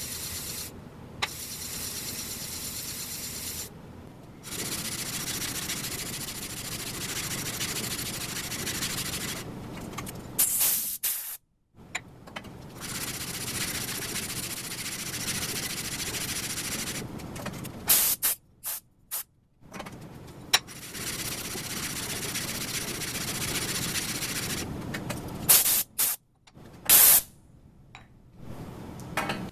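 Aluminum plate rubbed back and forth by hand on sandpaper taped flat to a cast-iron table-saw top: a steady rasping scrape as the plate's surfaced face is lapped smooth to take out the machining lines. The sanding stops for short pauses, with a few brief, sharp, louder noises in between.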